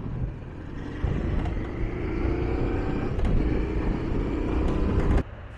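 A 2005 Honda Transalp 650's V-twin ridden at highway speed, heavy wind rush over a steady engine, the engine note rising gently as it accelerates. The loud riding noise cuts off abruptly near the end.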